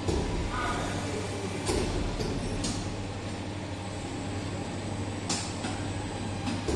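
Automatic bean-flour cake-making machine running, with its conveyor belt and brush roller making a steady low mechanical hum. A few sharp clacks sound at uneven intervals.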